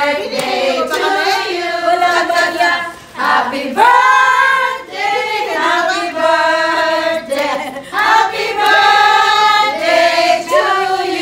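A group of women's voices singing a birthday song together in long held notes, with a few brief breaks between phrases.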